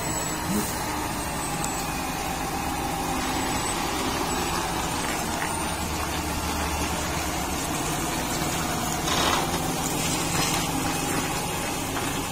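UD Trucks tractor unit's diesel engine running steadily at low speed while it pulls a lowboy trailer loaded with an excavator.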